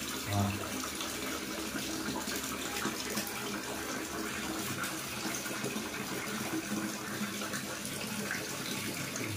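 Tap water pouring in a steady stream into a plastic basin already full of water, with some splashing in the basin.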